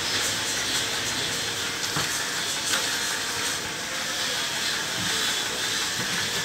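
A steady hiss with a couple of light knocks about two seconds in, as the wooden legs of a cradle stand are handled.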